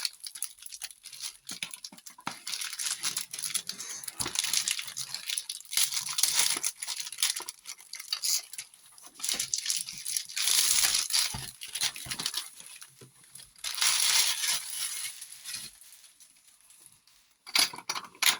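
Packaging being handled: irregular crinkling and tearing rustles, with a quieter lull near the end.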